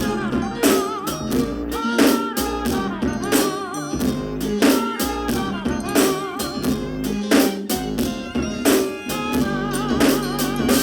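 Background music with a steady drum beat, guitar and a singing voice.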